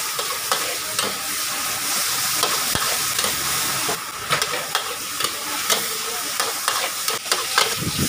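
Crispy pork and Chinese kale sizzling in a hot steel wok as they are stir-fried, with frequent clinks and scrapes of a metal ladle against the wok, more of them in the second half.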